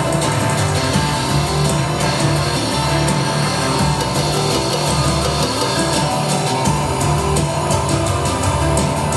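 Live band playing loudly: electric guitar with a drum kit beating steadily underneath.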